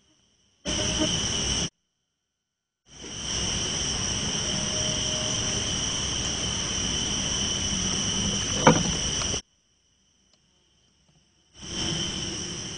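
Steady, high-pitched insect drone that cuts in and out abruptly, with short gaps of silence between stretches. A brief sharp sound comes about two-thirds of the way through.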